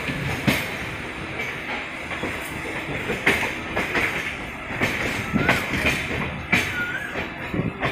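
Passenger train rolling along, heard from an open coach doorway: steady wheel-on-rail noise with sharp, irregularly spaced clacks as the wheels run over rail joints and points.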